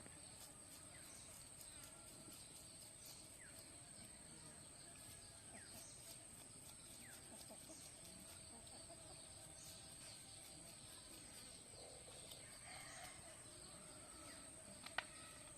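Near silence: faint rural background with a steady high-pitched drone and scattered faint animal calls, and one sharp click near the end.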